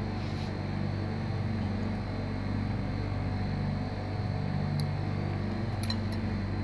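Steady low hum of equipment in the room, with a few light clinks of a serving spoon against glass buffet bowls near the end.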